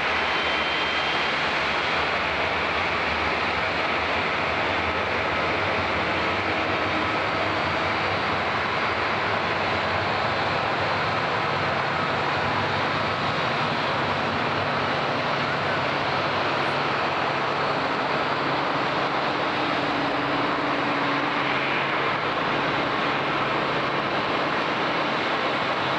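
Steady jet aircraft noise, an even rush with faint whining tones, from a four-engine Airbus A340 airliner being pushed back by a tug.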